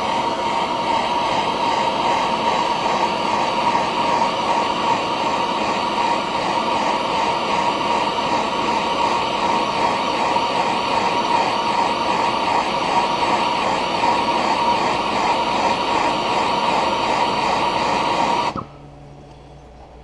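MAP-gas hand torch burning with a steady hiss and a faint steady whistle, shrinking adhesive heat-shrink tubing over a crimped battery-cable lug. The flame cuts off abruptly near the end.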